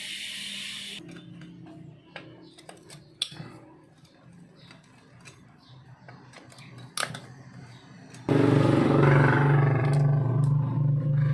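Scattered clicks and knocks of hand tools on metal, after a short hiss at the start. About eight seconds in, a loud motor starts up and runs with a steady hum.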